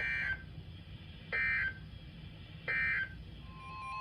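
Emergency Alert System SAME end-of-message code: three short, harsh digital data bursts about 1.3 seconds apart, signalling the end of the alert message. Near the end a steady single tone begins.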